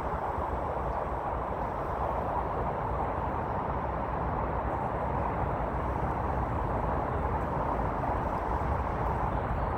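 Steady roar of distant road traffic, with a low rumble of wind on the phone microphone.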